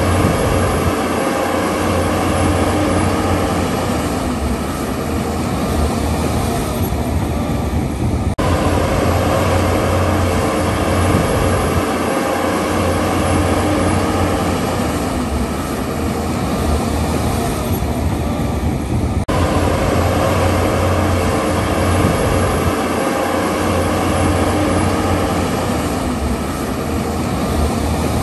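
Shantui crawler bulldozer's diesel engine running steadily under load as it pushes soil.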